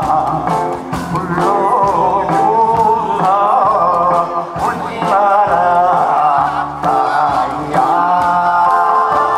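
A man singing a Korean trot song into a microphone over amplified backing music with a steady beat, his held notes wavering with vibrato.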